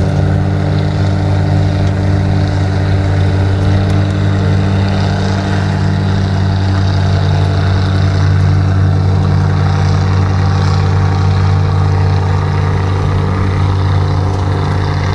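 A sailboat's inboard engine running steadily under way, an even, deep hum that holds the same pitch throughout.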